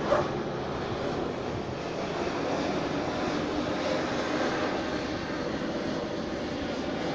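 A steady engine drone, even in level throughout, with a brief sharp click right at the start.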